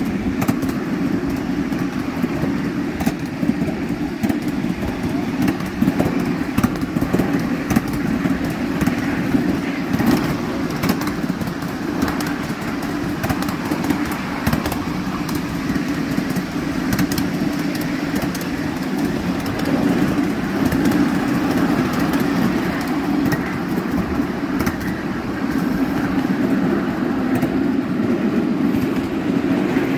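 A miniature steam railway train running along its track, heard from aboard a carriage: a steady rumble of wheels on rail with scattered sharp clicks.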